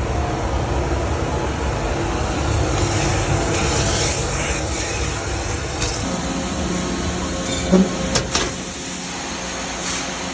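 Industrial central vacuum system running: a steady rush of air and machine noise with a low rumble that drops away about six seconds in, leaving a steadier hum, with a few short knocks around eight seconds in.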